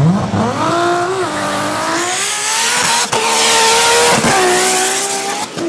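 Race-prepared 1000 hp Nissan GT-R accelerating hard off the hill-climb start line. The engine note sweeps up sharply, then climbs and falls back several times as it pulls through the gears, with a rushing hiss building in the middle.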